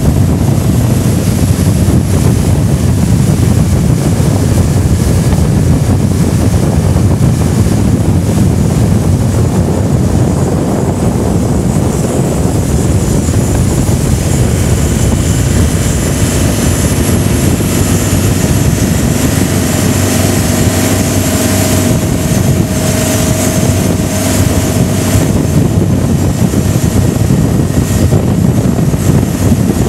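A 3.0-litre turbodiesel outboard motor running steadily at planing speed, with wind and water rushing past the boat.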